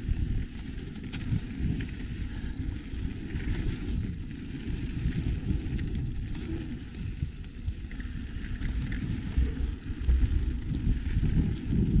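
Mountain bike riding fast down a dirt trail: tyres rolling over the ground and the bike rattling over roots and bumps, with wind on the camera microphone.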